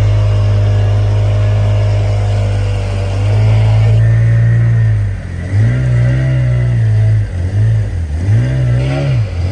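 Motorboat engine running with a steady drone; about halfway through, its pitch starts rising and falling again and again.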